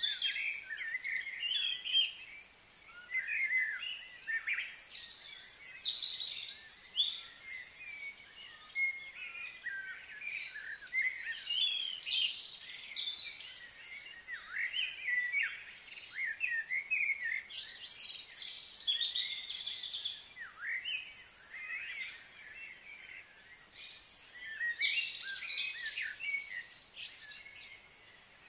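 Several wild birds chirping and calling at once in short, overlapping phrases. The calls thin out for a few seconds about two-thirds of the way through.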